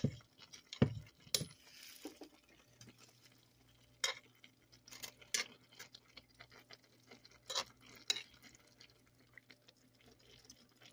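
A utensil stirring and turning soft, cooked-down collard greens and smoked turkey in a pot, with a handful of scattered clinks and knocks against the pot over a faint low steady hum.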